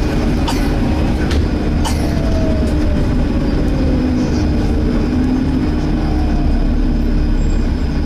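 Volvo B7TL double-decker bus heard from inside the passenger saloon: a steady, vacuum-cleaner-like whine from the engine cooling fan over the engine and road rumble, with a fainter whine sliding down in pitch partway through.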